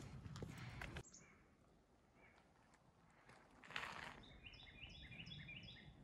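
Footsteps crunching on dry leaf litter for about the first second, then quiet woods with a brief rustle. Near the end a small songbird sings a quick run of repeated notes, about five a second.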